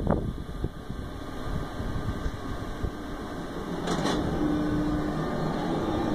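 Z 20500 double-deck electric commuter train starting to pull away: a low rumble with a few knocks at first, a brief hiss about four seconds in, then a steady electric hum from its traction equipment sets in as it gathers speed.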